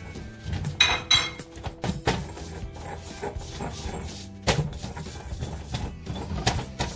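Stone pestle grinding and knocking in a stone molcajete, crushing garlic, peppercorns and dry spices, with irregular sharp stone clinks, two loud ones about a second in. Background music plays underneath.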